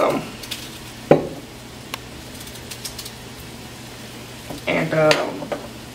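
A single sharp clank of a utensil against a pot about a second in, followed by a faint tick, over a low steady hum. A brief murmur of voice comes near the end.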